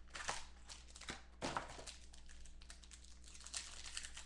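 Foil trading-card pack wrapper crinkling and tearing as hands open it, irregular crackles with a louder rip about one and a half seconds in, along with the rustle of the cardboard box it comes out of.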